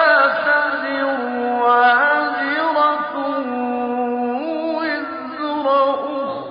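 A man's voice recites the Quran in a melodic tajwid chant. He holds long, drawn-out notes and steps up and down between pitches, with a brief break near the end before the next phrase begins.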